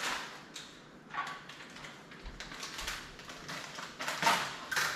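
Kitchen handling noises: a run of irregular knocks and crinkles as food packaging and containers are handled and set down on a countertop, the loudest about four seconds in.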